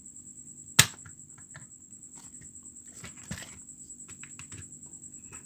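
Small clicks and light rattling of metal split rings and treble hooks being picked out of a clear plastic tackle box, with one sharp click about a second in.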